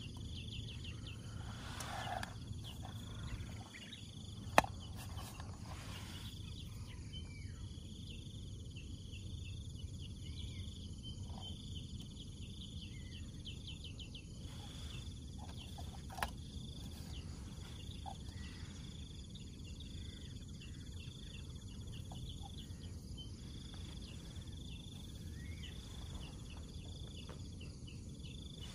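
Insects chirping in repeated high trills, over a low steady rumble. Two sharp clicks stand out, the louder about four and a half seconds in and another about sixteen seconds in.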